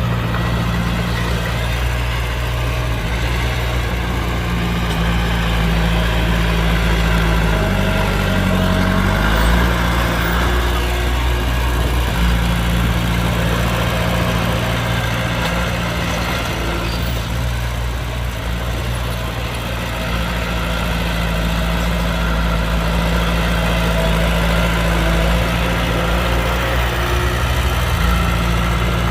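Heavy diesel engine of earth-moving machinery running steadily, its engine speed shifting briefly about eight seconds in and again near the end.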